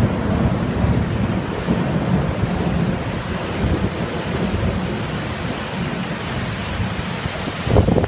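Heavy tropical rain with thunder rumbling low and long, easing after a few seconds, and a sudden louder burst near the end.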